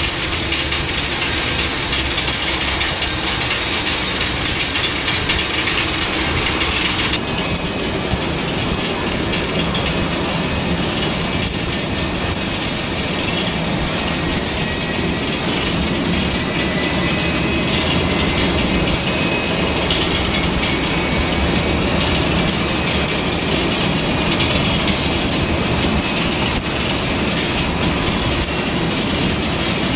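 Steady jet-engine noise of a Boeing 747-400 on the apron, a continuous rumble and rush, with a faint high whine that drifts slowly down in pitch midway. The sound changes abruptly about seven seconds in as the recording cuts.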